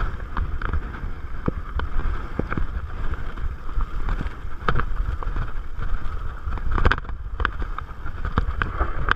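Wind buffeting the microphone over the rolling rumble of a Salsa Bucksaw fatbike's fat tyres on a dirt trail descent, with frequent irregular clicks and rattles from the bike as it runs over bumps and stones.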